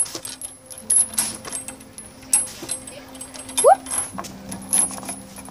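Scattered clinks, knocks and rattles as a boy climbs down a wooden playset with chain-hung swings, with a short rising "whoop!" shout about three and a half seconds in.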